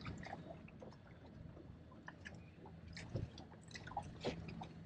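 Faint scattered wet clicks, drips and small splashes as a crab trap's line is hauled up hand over hand from the water, with a few louder ones in the last couple of seconds.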